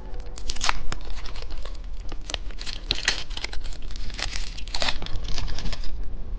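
Candy wrapper crinkled and torn open by hand, an irregular run of crackles and rustles.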